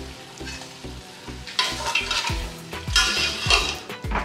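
Spoon stirring and scraping chicken sizzling in a pot, the strokes growing loud from about one and a half seconds in.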